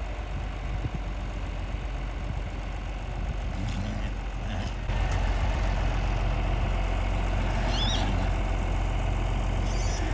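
An engine running steadily at idle, a little louder from about halfway through.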